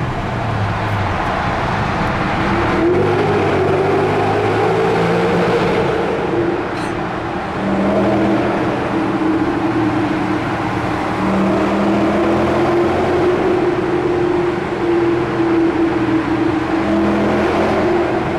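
BMW E39 M5's 4.9-litre V8 accelerating hard, heard from inside the cabin with the tunnel walls echoing it back. The engine note climbs over the first few seconds, dips briefly about seven seconds in, then pulls on strongly.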